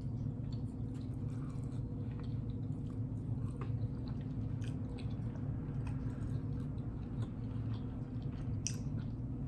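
Close-miked chewing with wet mouth clicks and smacks scattered throughout, over a steady low hum.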